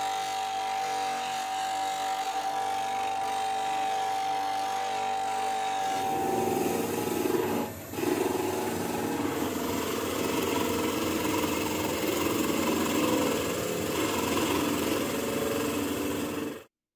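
Bench grinder running with a steady whine as a chisel is ground on its wheel; about six seconds in it gives way to a wood lathe, a freshly sharpened turning chisel cutting a spinning wooden blank with a rough, steady shearing noise. The sound cuts off suddenly near the end.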